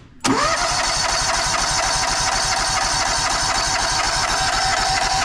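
A portable sawmill's petrol engine starts about a quarter second in, revs up quickly, then runs steadily with an even firing pulse.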